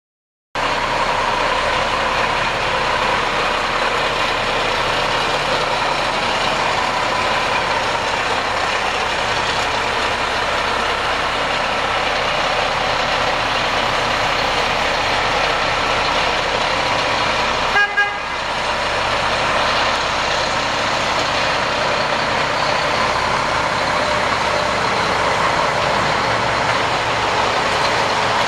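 Mack E7-300 12-litre inline-six turbo diesel of a 1992 Mack CH613 truck running steadily. About eighteen seconds in, a short double toot cuts in briefly.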